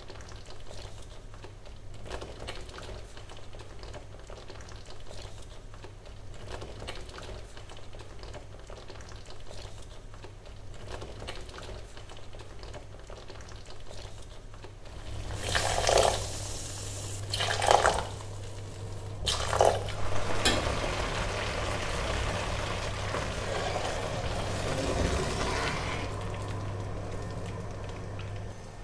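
Pumpkin risotto simmering in a pan with a soft, steady bubbling. About halfway through, a wooden spoon starts stirring the wet rice: three separate strokes, then about six seconds of continuous sloshing stirring that dies away.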